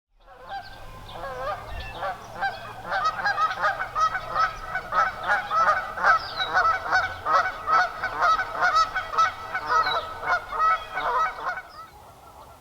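Many birds calling at once, calls repeating and overlapping densely, stopping about a second before the end.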